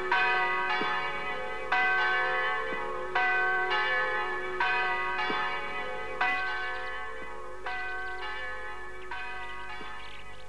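Church bell tolling, one stroke about every second and a half, each ringing out before the next, the whole gradually fading.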